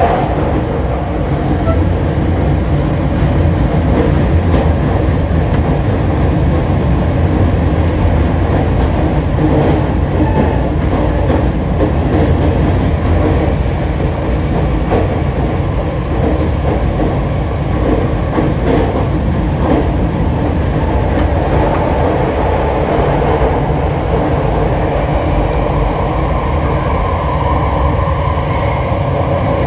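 Running sound of a Hokushin Kyuko 7000-type subway train, set 7055, under way, heard from inside the car: a steady rumble of wheels on rail with scattered faint clicks. A faint whine comes in during the second half.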